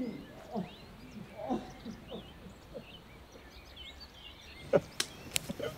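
Woodland birds calling: low, repeated rising-and-falling cooing calls with high chirps over them. About five seconds in come a few sharp cracks, like twigs snapping underfoot as someone walks over the forest floor.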